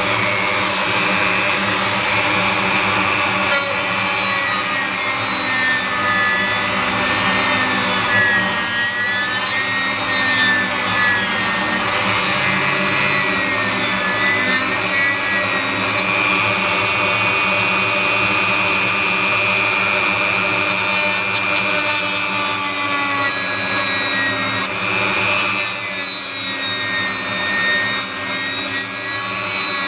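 Dremel rotary tool with a carbide bit running at high speed, grinding burnt, carbonised fiberglass out of an amplifier circuit board. Its steady high whine wavers in pitch now and then as the bit bites into the board.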